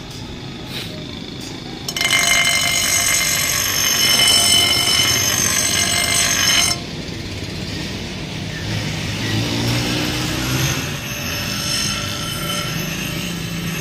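Electric grinder's spinning wheel grinding the edge of a steel axe head: a loud, harsh hiss from about two seconds in, dropping off sharply just before seven seconds to a lighter, quieter grinding.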